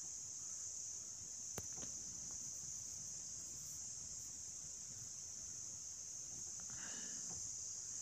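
A steady, high-pitched background whine or hiss with no pauses, and a single click about one and a half seconds in.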